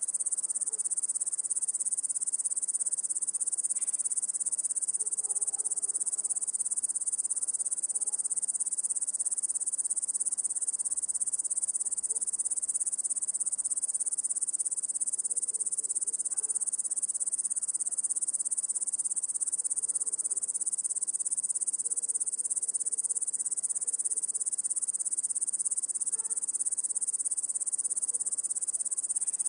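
Crickets chirping in a dense, continuous chorus, a steady high-pitched trill.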